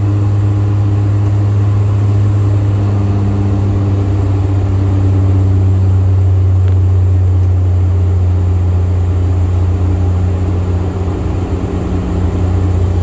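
Airplane engines droning as a loud, steady low hum, with a few fainter steady tones above it.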